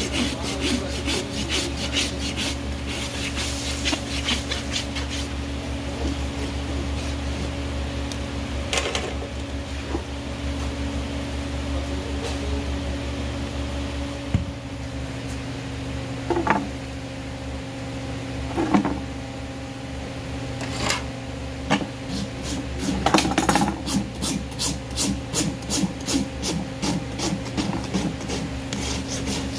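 Farrier's hoof rasp filing a horse's hoof in quick, even back-and-forth strokes, at about three to four strokes a second. The strokes come in runs in the first few seconds and again through the last third, with a few louder scrapes and knocks in between. A steady low hum runs under it.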